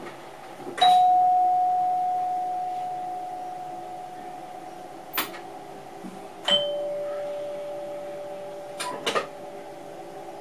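Two strikes of a chime, like a doorbell: a higher ding about a second in and a lower dong about five and a half seconds later, each ringing out slowly. Beneath them a steady electrical hum fills the train cab, with a few short clicks.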